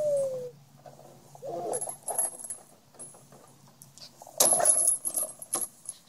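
A loud, sudden rattling clatter about four and a half seconds in, lasting about a second, as a toddler tumbles off a plastic belt swing and its metal chains jangle. A short falling note is heard at the very start.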